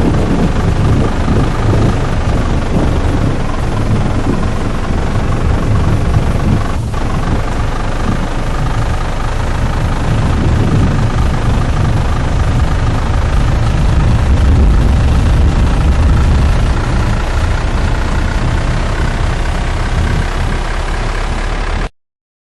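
Loud, steady low rumbling roar of the TIV 2 tornado intercept vehicle on the move, its running engine and heavy wind noise blended together. It cuts off suddenly near the end.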